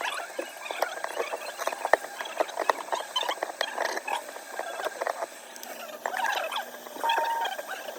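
Small repair tools clicking, tapping and scraping on an iPhone's glass back and frame: a dense run of light clicks and scratches, with a short steady tone about seven seconds in.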